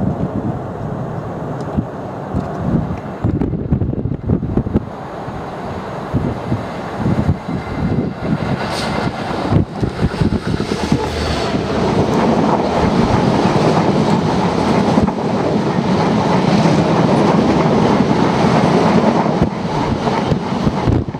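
Class 66 diesel locomotive running past at speed, followed by a long train of tank wagons clattering by, wheels clicking over the rail joints. The sound grows louder and steadier about halfway through as the wagons pass close.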